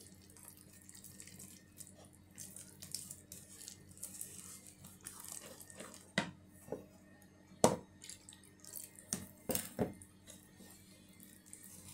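Thick banana pancake batter being stirred by hand in a bowl: faint wet slopping and squelching, with scattered sharp knocks of the utensil against the bowl. The loudest knock comes about two-thirds of the way through.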